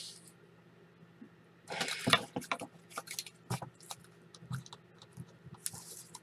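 Crinkling plastic and light clicks of trading cards and their wrappers or sleeves being handled, densest about two to three seconds in, over a faint steady electrical hum.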